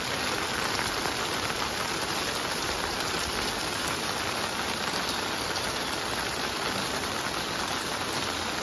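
Torrential rain pouring down on a flooded street, an even, steady hiss.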